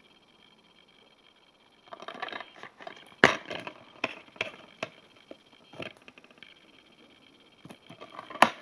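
Plastic DVD case being handled: a run of clicks and rattles as the case is opened and the disc shown, with the loudest sharp snap about three seconds in and another snap near the end as it is shut.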